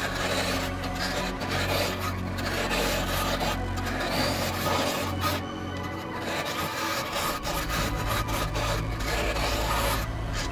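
Hooked hollowing tool scraping and cutting inside a cedar blank spinning on a wood lathe: an uneven scraping noise over the steady low hum of the lathe motor.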